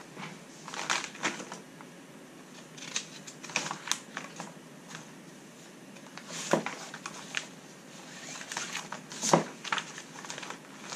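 Paper rustling and small knocks as the pages of a kit instruction booklet are turned and handled on a desk, with a couple of sharper clicks, about six and a half and nine seconds in.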